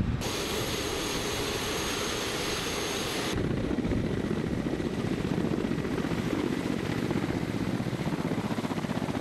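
Kamov Ka-52 attack helicopter running with its coaxial rotors turning. At first a steady high whine sits over the rotor noise. From about three seconds in, there is a fast, even rotor beat as the helicopter lifts off into a hover.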